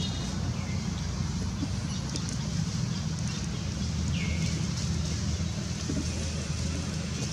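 Steady low rumble of wind on the microphone. Two short high chirps drop sharply in pitch, about half a second in and again about four seconds in.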